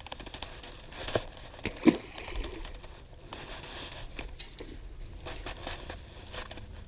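Close handling noises: rustling and clicking, with two sharp knocks about one and two seconds in, the second the loudest.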